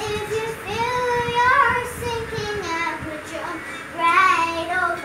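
A young girl singing: a few long held notes that slide up and down in pitch, in phrases with short breaks between them.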